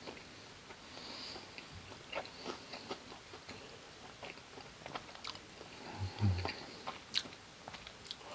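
Close-up eating sounds: biting into and chewing an air-fried gimmari (seaweed-wrapped glass-noodle fritter) coated in tteokbokki sauce. The chewing comes with scattered crisp crunches and wet clicks, and there is a brief low hum about six seconds in.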